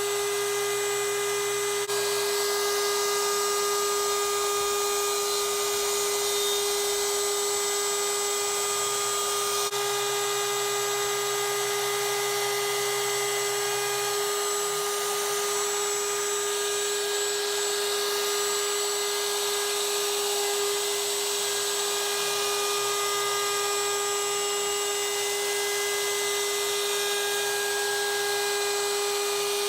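CNC router spindle running with a steady whine while a 90-degree V-bit cuts a beveled edge into a wooden board.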